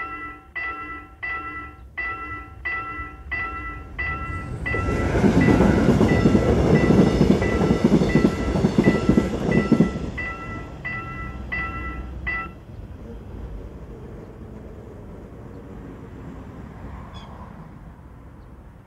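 Korean railroad-crossing warning bell dinging evenly, about twice a second, as a Mugunghwa-ho passenger train passes over the crossing. The train's loud rumble and wheel clatter start about four seconds in and last about five seconds. The bell stops about twelve seconds in, leaving the train's fading rumble.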